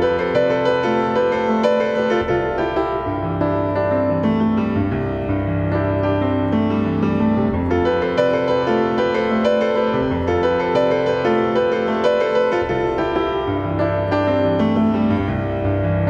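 Instrumental background music led by piano, with chords over a held bass line, playing steadily.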